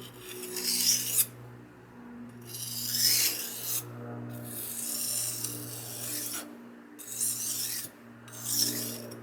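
Steel kitchen-knife blade drawn across a whetstone in about five scraping strokes, each followed by a short pause, while the edge is being sharpened at a shallow angle. A steady low hum runs underneath.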